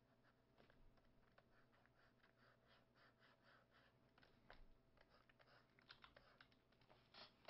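Near silence with faint, irregular light clicks and short soft scratching strokes from hands working a digital drawing setup (stylus and keys), over a low steady hum.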